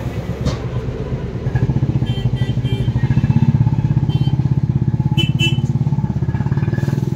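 An engine running steadily with a fast, even putter, getting louder about a second and a half in.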